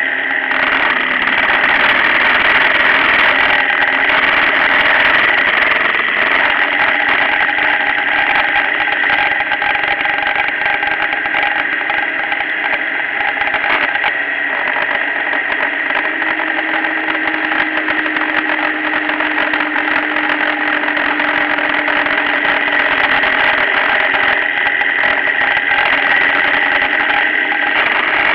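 Motorcycle riding at highway speed, heard from a camera mounted on the bike: a steady engine note mixed with wind and road noise, the pitch drifting slightly lower partway through.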